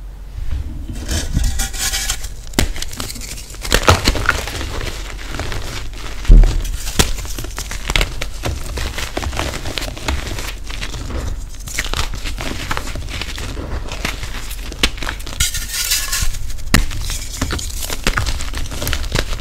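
A pressed gym chalk block crushed by hand in a bowl of loose chalk powder: crisp cracks and snaps as it breaks, then crunching and crumbling as chunks are squeezed between the fingers. The loudest crack comes about six seconds in.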